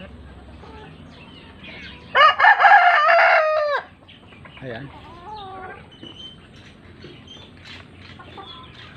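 A rooster crows once, a loud call of almost two seconds whose pitch drops away at the end, over faint clucking of hens.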